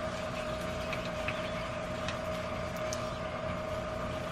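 Corn tortilla frying in hot oil in a pan, giving a few scattered sharp pops over a steady appliance hum.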